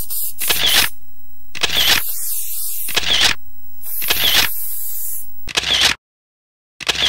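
Aerosol spray-paint can hissing in about six short bursts, roughly a second apart. The sound cuts out near the end, apart from one last brief burst.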